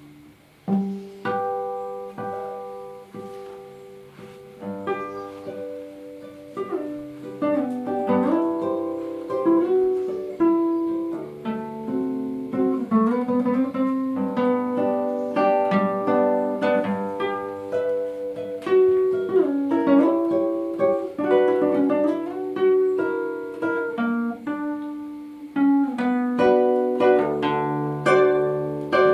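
Solo classical guitar played in tremolo: rapidly repeated high notes carrying the melody over a moving bass line. It starts soft and comes in with a strong chord about a second in.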